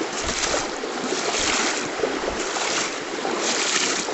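Steady rush of flowing river water, with brighter swells about once a second.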